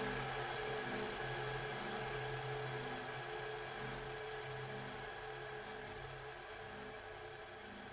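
Low ambient drone from the dance piece's soundtrack: a steady hum of held tones with a faint slow pulse, fading out gradually.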